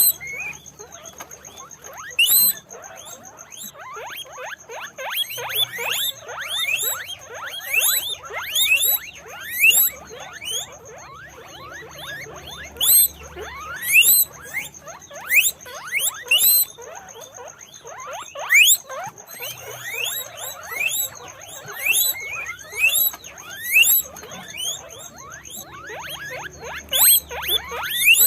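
Guinea pigs squeaking over and over: many short squeals, each rising quickly in pitch, coming in quick runs and often overlapping. A faint steady high-pitched tone runs underneath.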